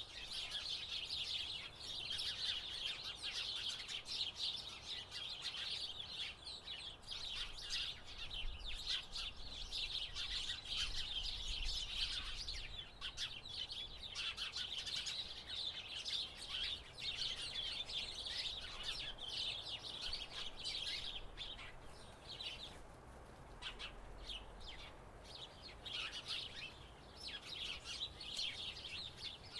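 A flock of house sparrows chirping in a dense, overlapping chatter of short chirps, thinning out for a few seconds about three quarters of the way through.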